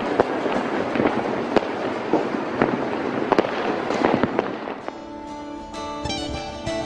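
Fireworks and firecrackers going off in many sharp bangs over a dense crackle, dying away about five seconds in as soft music comes in.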